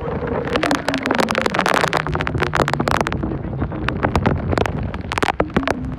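Heavy rain pattering, with dense, irregular sharp drop impacts close to the microphone, thickest in the first few seconds. Under it runs a low hum from the ferry that drops in pitch about a second in.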